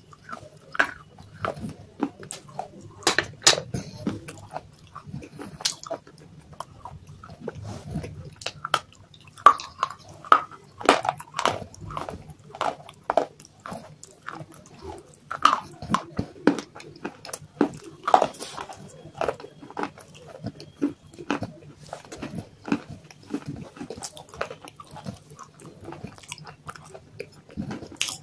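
A person biting and chewing pieces of dry clay: a steady, irregular run of sharp crunches and grinding chews.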